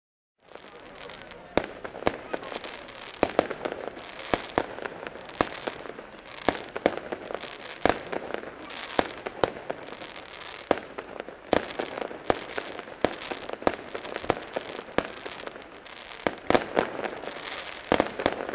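Aerial fireworks display starting about half a second in: a steady crackle and hiss of rising shells and bursting stars, with sharp bangs about once or twice a second.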